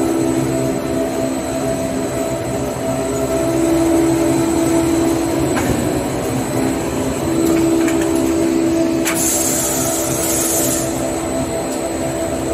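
Toilet paper rewinding production line running at 300 metres per minute: a loud, steady machine drone with a constant hum and a thin high whine. A couple of sharp clicks come near the middle, and a hiss of about two seconds starts about nine seconds in.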